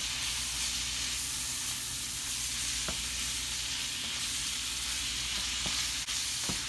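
Leftover meat frying in a pan with soy sauce: a steady sizzling hiss, with a few light clicks.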